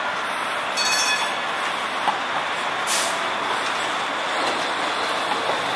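Muni Breda light rail car rolling slowly through a tight curve of track, its steel wheels giving a brief high squeal about a second in over a steady rolling rumble, with a single sharp click about two seconds in.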